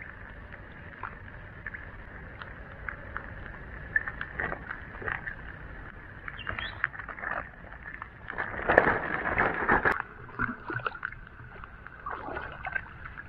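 Water splashing and sloshing, broken by small knocks and clicks, with a louder stretch of splashing about nine seconds in.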